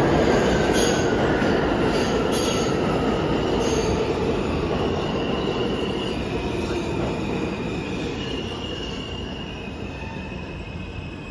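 New York City Subway G train running past on the far track of an underground station and pulling away. The wheels and rails rumble with a few sharp clicks in the first seconds and high squealing tones, and the sound fades steadily as the train leaves.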